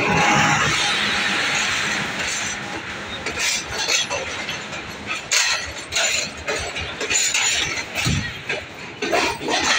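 Pakistan Railways passenger coaches rolling past along a station platform. A loud rushing noise in the first couple of seconds gives way to scattered clanks and clicks from the wheels and couplings, with platform voices underneath.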